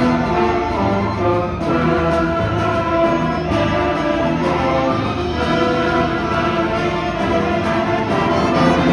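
A school string orchestra playing, with violins, cellos and double basses sounding together in a steady, full passage of held and moving notes.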